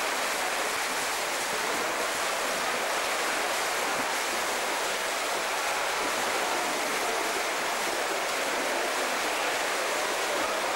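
Steady, even wash of splashing water from swimmers racing in an indoor swimming pool.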